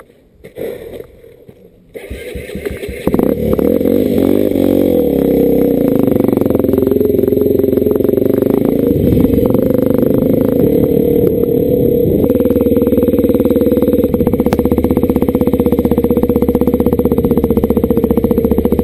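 Dirt bike engine running while being ridden, coming in loud about two seconds in. Its note falls around four seconds in, then holds fairly steady.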